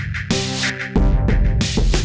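Electronic beat played from a Native Instruments Maschine: programmed drum hits with a deep kick about once a second, over bass and synth notes.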